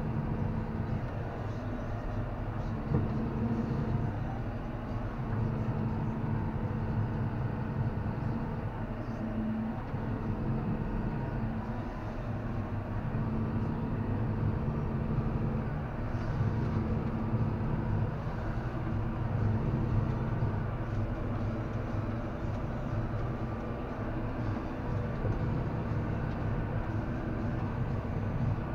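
John Deere tractor's engine running steadily under load, heard from inside the cab, together with the mechanical clatter of the trailed John Deere round baler picking up and rolling hay.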